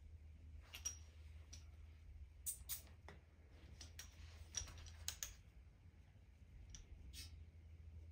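Faint, scattered light clicks and taps, about nine in eight seconds and irregular, from gloved hands handling fittings on the engine, over a steady low hum.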